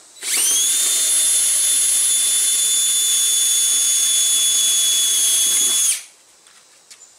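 Cordless drill running at full speed, boring a hole into the front fender's sheet metal: a steady high whine that winds up at the start and cuts off sharply about six seconds in.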